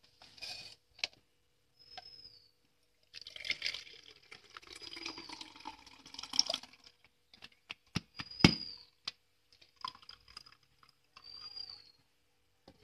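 Blended mint juice pouring from a steel mixer jar through a plastic mesh tea strainer, a liquid pour lasting a few seconds. It is followed by a couple of sharp knocks, the loudest sounds here, with short high chirps scattered throughout.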